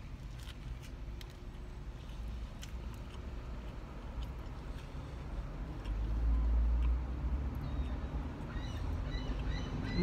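Chewing and small crinkling clicks from eating a burger, over a low steady rumble that swells about six seconds in. A bird chirps repeatedly near the end.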